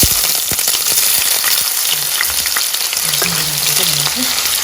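Cut potatoes frying in hot oil in a pan: a loud, steady sizzle with small crackles.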